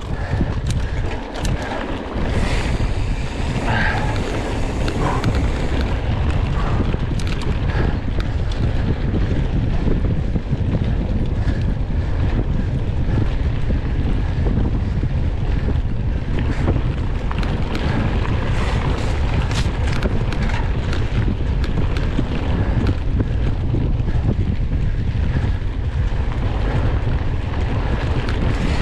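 Steady wind rumble on the microphone of a camera carried on a moving bicycle at race speed, with scattered light clicks and rattles.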